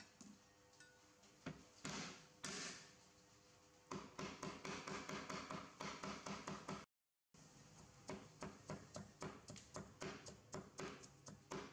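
Steel cleaver chopping greens on a round wooden chopping board. A few separate knocks come first, then fast, even chopping at about five strokes a second, which breaks off briefly about seven seconds in and starts again.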